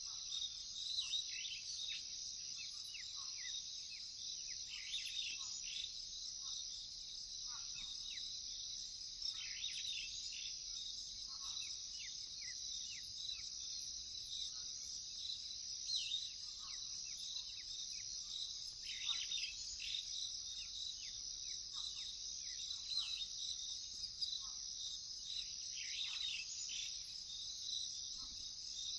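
A steady, high chorus of crickets, with many short, downward-sliding bird chirps scattered throughout.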